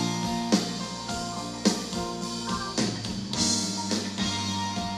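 Live pop-rock band playing an instrumental passage of the song, led by guitar over bass and keyboards. Strong struck chord accents come roughly once a second.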